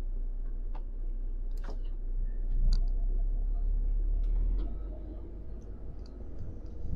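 Scattered, irregular small clicks and ticks over a low steady hum.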